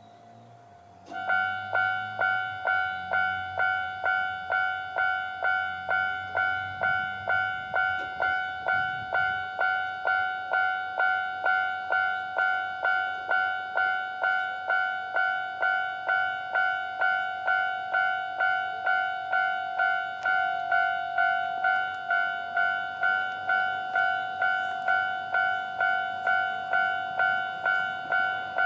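Japanese railway level-crossing alarm starting about a second in: an electronic bell tone struck about twice a second, repeating evenly as the crossing warns of an approaching train.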